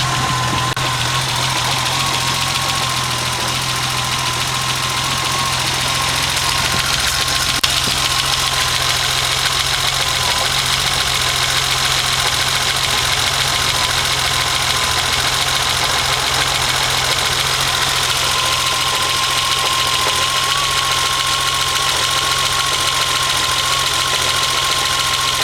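BMW M20 2.7-litre straight-six engine idling steadily, with the slight misfire that the owner is showing.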